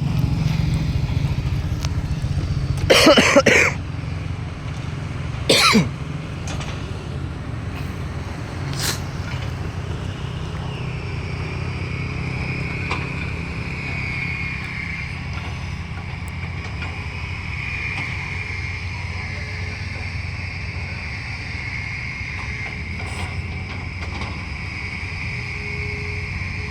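Excavator's diesel engine running steadily, with two loud short rough noises, one about three seconds in and one near six seconds. A steady high whine comes in about ten seconds in and runs on under the engine.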